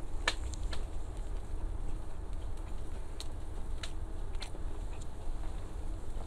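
A person chewing food, with a few small sharp clicks and crunches scattered through, over a steady low rumble.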